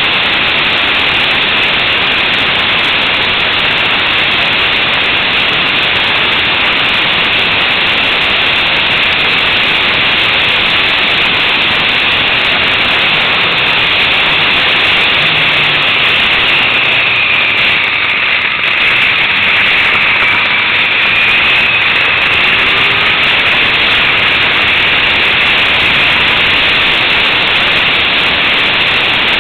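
Loud, steady rush of wind and road noise on the action camera's microphone of a motorcycle riding at road speed, with faint rises and falls of engine pitch about two-thirds of the way through.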